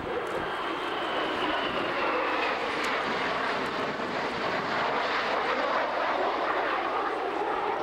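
Two F/A-18 Hornets' jet engines passing in close formation, a loud rushing roar that builds about a second in and holds. A faint high whine falls in pitch as the jets go by.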